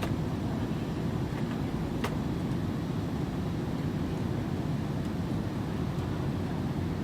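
Steady low rumble of engine and airflow noise inside an airplane cabin, with a faint click about two seconds in.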